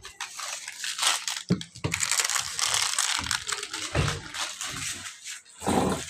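Rustling and crinkling handling noise from a phone rubbing against a cotton shirt as it is carried and moved, with a few muffled bumps.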